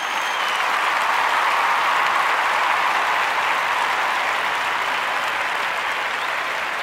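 Crowd applauding, a steady wash of clapping, with a brief whistle right at the start.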